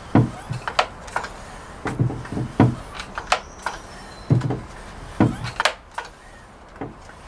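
FX Indy air rifle's built-in pump being worked by hand, refilling its onboard air reservoir: a series of clacks and knocks from the pump lever, the loudest about once a second.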